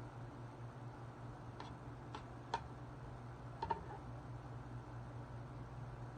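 Eating sounds during a meal: four or five light, sharp clicks and taps spread over the first four seconds, over a steady low hum.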